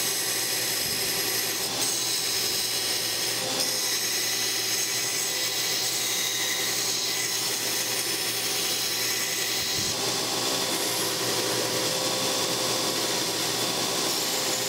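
Belt grinder running steadily while a forged steel knife blank is pressed against the belt on its contact wheel: an even grinding noise as the blade's profile is rough-ground before hardening.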